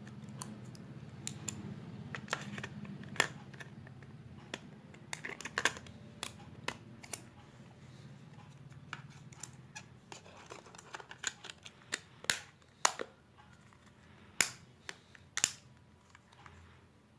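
Irregular sharp plastic clicks and taps from a Jio feature phone being handled while its battery is fitted and the back cover snapped on. A low hum runs underneath in the first half and fades out.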